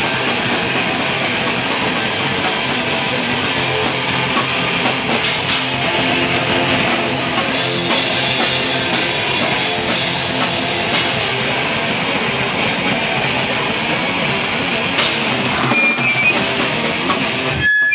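Live rock band playing loud, heavy music: a drum kit pounding under electric guitars. The playing stops abruptly just before the end.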